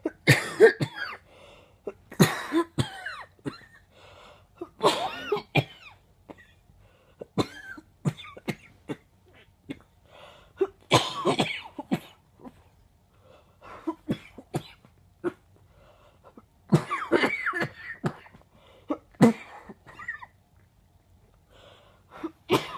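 A person coughing in repeated bouts a few seconds apart, each a cluster of sharp, congested chesty coughs with some throat clearing. The coughing comes from a bad cold with chest congestion and is painful in the chest.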